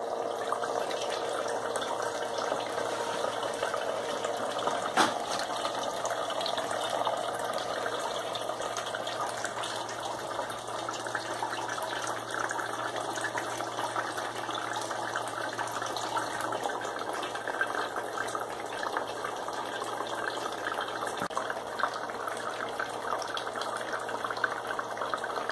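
The water pump of a homemade Tempescope weather box running in rain mode, with a steady low hum under the patter and splashing of water raining down inside the acrylic tank. One sharp click comes about five seconds in.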